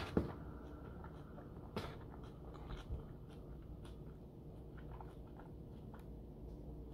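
Close-up chewing of a mouthful of rice-paper spring roll, soft and wet. A few sharper clicks come about a fifth of a second in, near two seconds and near three seconds, then smaller chewing clicks.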